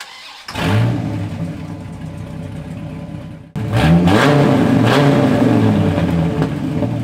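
A 2005 Dodge Viper SRT-10's 8.3-litre V10, heard through its side-exit exhaust, fires up with a loud flare about half a second in and settles to an idle. Later it is revved twice in quick blips and drops back to a steady idle.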